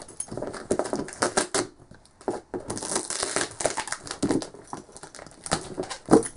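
A cardboard package being pulled and torn open by hand: ripping packing tape and cardboard flaps, with crinkling plastic wrap, in an irregular string of rustles and rips, one louder rip near the end.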